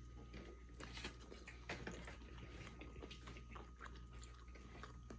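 Faint chewing of a mouthful of cooked trout, with scattered soft wet clicks from the mouth.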